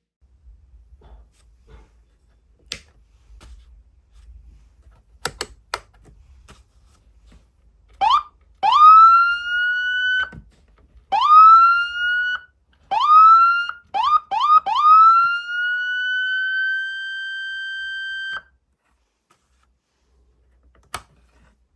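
Whelen 295SLSA6 siren amplifier sounding a siren tone in a series of blasts that are switched on and off. Each blast swoops quickly up in pitch, holds high, and cuts off sharply; there are several short ones, then a longer one of almost four seconds. A few sharp clicks, like control switches, come before the blasts and once more near the end.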